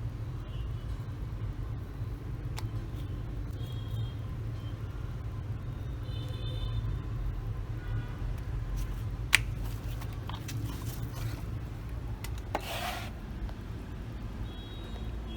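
Electric fruit-slicing machine's motor running with a steady low hum, with scattered clicks, one sharp click about nine seconds in and a short noisy burst about twelve and a half seconds in.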